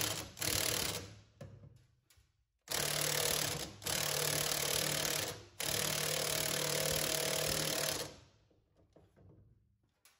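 Cordless impact wrench hammering in several bursts, the longest in the middle, stopping about two seconds before the end. It is tightening the jacking screw of an internal coil spring compressor to compress a front coil spring for removal.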